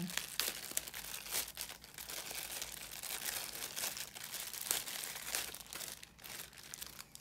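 Clear plastic wrapping of a pack of trading photocards crinkling and crackling as hands unwrap it, a dense run of crackles that thins out near the end.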